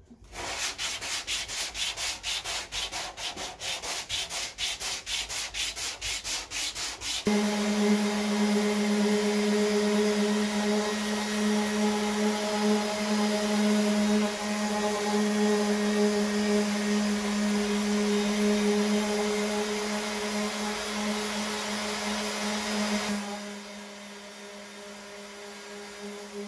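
Body filler on a car door being hand-sanded with a sanding block, in quick rubbing strokes about five a second. About seven seconds in, a Ryobi electric orbital sander with a 120-grit disc takes over: a steady motor hum with the hiss of the disc grinding the filler. The sander turns quieter and duller for the last few seconds.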